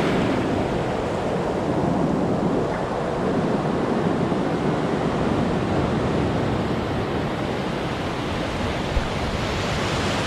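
Ocean surf breaking and washing in around the shallows, a steady rushing wash, with wind buffeting the microphone.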